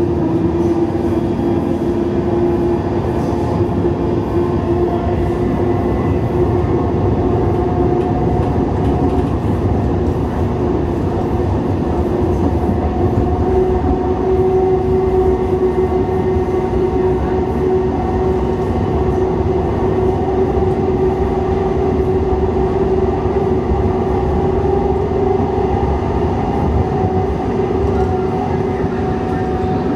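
Siemens S70 light rail car running between stations, heard from inside: a steady rumble of wheels on track with a steady hum whose pitch steps up slightly about halfway through.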